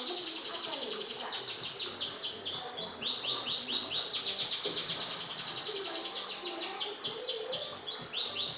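Domestic canary singing a long, unbroken song of fast high trills, about ten short notes a second, switching to a new trill phrase every few seconds.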